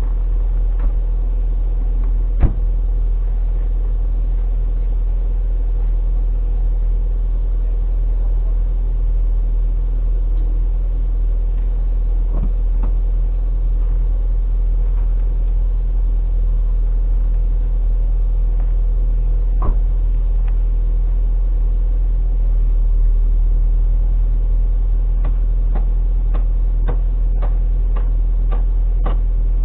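A car's exhaust idling steadily at the tailpipe after a cold start in about −20 °C. It is a low, even rumble with scattered sharp clicks, which come more often near the end.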